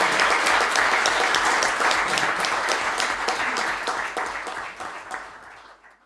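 Audience applauding, a dense mass of many hand claps that fades away over the last couple of seconds.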